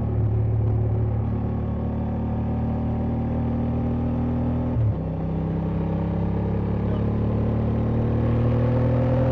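Honda Transalp XL750's 755 cc parallel-twin engine under way. Its revs dip briefly about five seconds in, then climb steadily as the bike accelerates.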